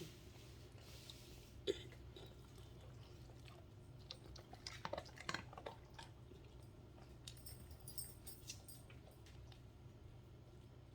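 Great Pyrenees dog chewing food from a hand: faint, scattered crunches and clicks of eating, in small clusters.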